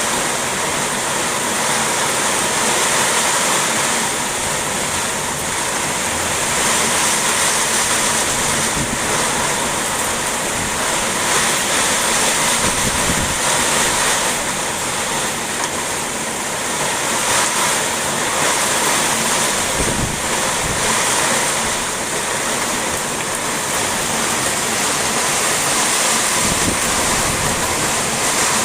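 Heavy rain pouring down in a steady hiss, swelling and easing with gusts of strong wind, with a few low thumps of wind on the microphone.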